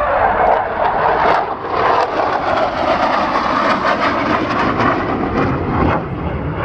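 Aircraft engine noise from a display aircraft, loud and steady, swelling up as it begins.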